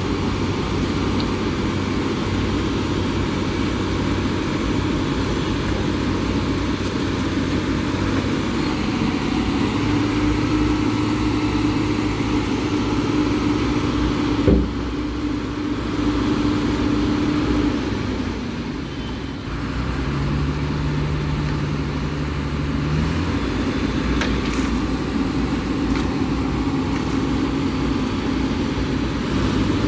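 Heavy diesel engines of a Tata Hitachi excavator and a Tata Hyva truck running steadily during the recovery of the stuck truck. A single sharp knock is heard about halfway through, and the engine note shifts for a few seconds around two-thirds of the way through.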